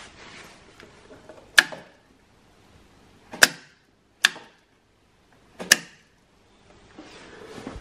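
Four sharp, separate clicks spread over several seconds, with faint rustling between them.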